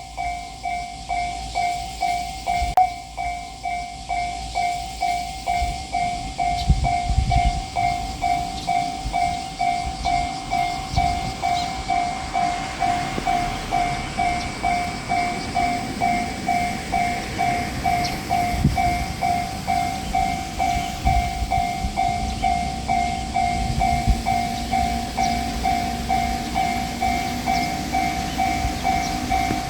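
Japanese railway level-crossing alarm ringing its electronic 'kan-kan' bell: a pitched ding repeated evenly about twice a second. Low rumbles come and go beneath it, and a faint low hum sets in past two-thirds of the way through.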